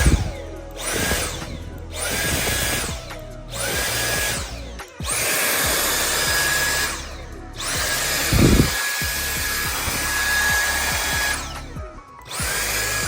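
Dyson V8 cordless vacuum motor switched on and off with its trigger about seven times. Each burst starts with a rising whine as the motor spins up, and the longest runs about four seconds. It is running on a DeWalt 20V battery through an adapter, which is working.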